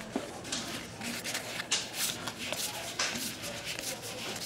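2012 Topps Allen and Ginter baseball cards being flipped through by hand, card stock sliding and flicking against card stock in a series of soft swishes.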